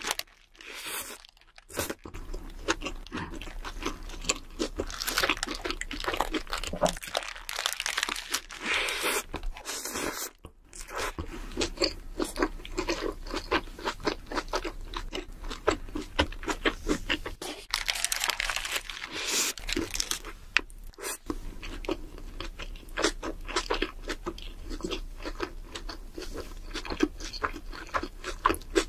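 Close-miked eating: bites into a burger and crunchy fried food, with crisp crunching and chewing, briefly cut off a few times.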